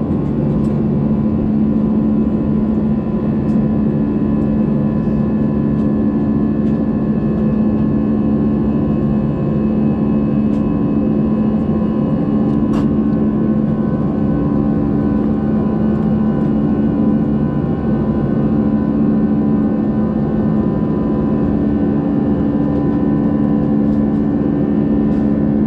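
Airbus A320 cabin noise from a window seat: a steady jet-engine and airflow drone with a low hum and a slow throb in it.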